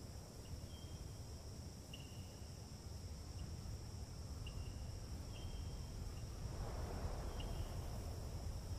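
Insects singing in a steady, high, even drone, with short high chirps every second or so and a low rumble of wind underneath. A soft rush swells briefly about seven seconds in.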